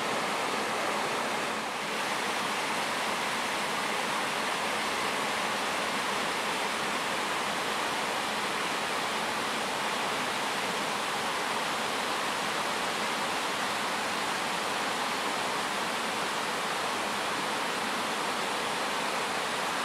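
River water pouring over a low weir, a steady rushing.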